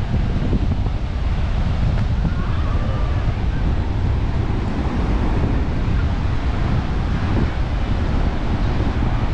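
Steady wind buffeting the microphone over the continuous wash of surf on a sandy beach.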